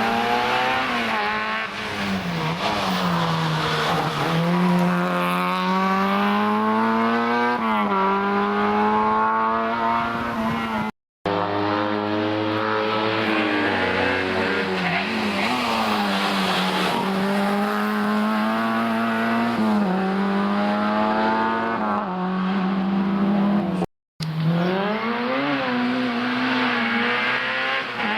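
Historic rally car engines running hard on a gravel or tarmac stage, revving up and falling back again and again through gear changes and corners. The sound breaks off abruptly twice, about eleven and twenty-four seconds in, as one car's pass gives way to another's.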